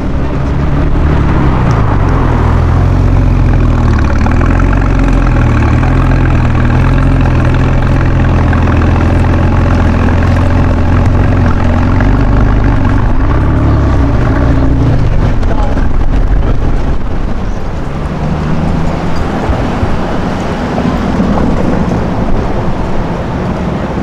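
Air-cooled flat-six of a 993-generation Porsche 911 running at low road speed, loud and close, with the engine note rising and falling a few times as it drives by. Past the middle it fades, and a second car's engine takes over near the end.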